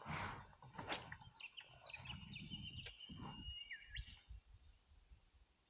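A bird calling faintly: a thin, high whistle held at one pitch for over a second, ending in a quick upward sweep, about two and a half seconds in. Under it are a brief rush of noise at the start and a few soft knocks and clicks.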